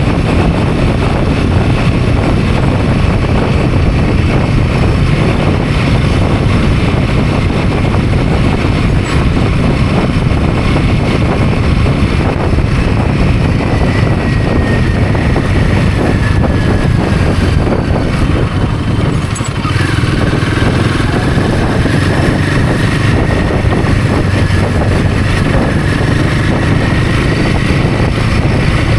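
Royal Enfield Himalayan 450's 452 cc single-cylinder engine running steadily while the motorcycle is ridden. The sound dips briefly a little over two-thirds of the way through.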